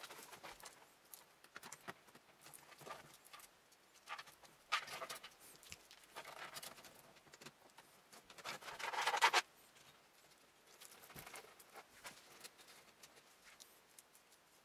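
PC power and data cables being pushed, bent and tucked into place inside a computer case: scattered plastic clicks and rustling, with a longer, louder scraping rustle about nine seconds in.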